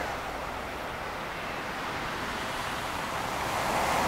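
Surf washing onto a sandy beach: a steady hiss of water that swells as a wave breaks near the end.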